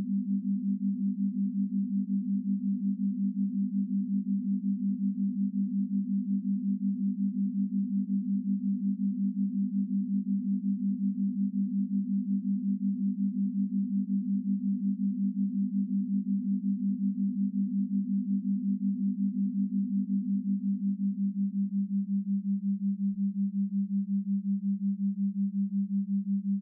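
Electronic sine-wave meditation tone, a steady low pitch pulsing rapidly and evenly in loudness, as in an isochronic or beat-frequency 'pineal wave' track.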